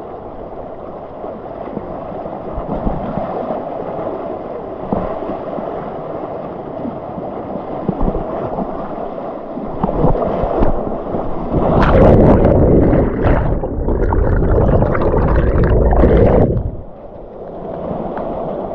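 Rushing water of a mountain waterfall, a steady churning noise that grows louder and heavier about ten seconds in and falls back shortly before the end.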